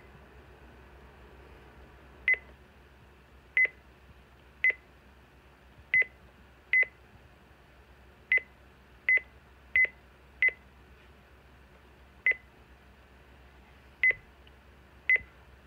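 Midland WR-300 weather radio giving a short high key-press beep at each button press, about a dozen beeps at uneven intervals as its menu is stepped through.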